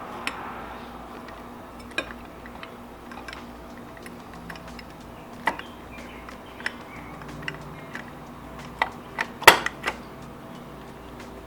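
Scattered light clicks and taps of an LED headlight and its wiring connector being handled during installation, with a sharper knock about nine and a half seconds in.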